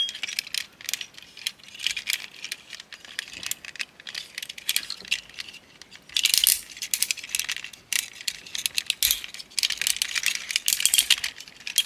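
Plastic parts of a transforming robot toy clicking and rattling as they are handled, folded and pegged into place, in irregular runs of sharp clicks that bunch up about halfway through and again near the end.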